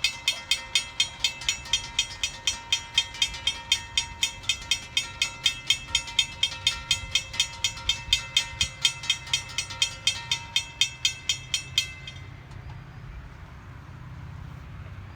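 Railroad crossing bell ringing rapidly, about four strokes a second, then stopping about twelve seconds in. A low steady rumble runs underneath.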